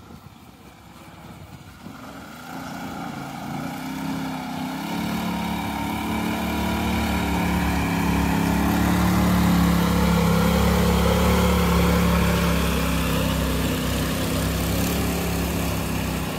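Engine of a wooden long-tail boat running steadily as the boat approaches and passes close by. It grows louder over the first half and eases off near the end as the boat moves away.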